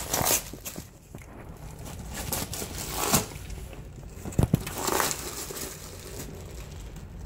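A dog tearing open a cardboard box with its teeth and paws: irregular ripping, crumpling and scraping of cardboard, the loudest rips about three and four and a half seconds in.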